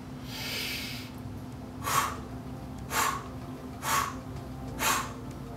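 A woman's long hissing inhale through pursed lips, like sipping air through a straw, then four sharp, forceful exhales through the mouth about one a second, each pushed out from the navel: a yogic pranayama breathing exercise.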